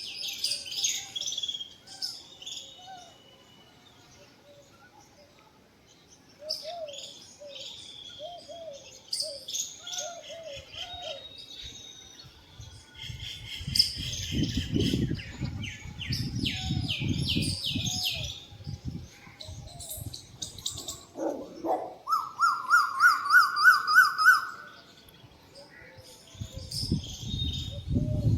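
Several birds singing and calling, a mix of chirps and whistled phrases. Near the end, one bird gives a loud run of quickly repeated notes.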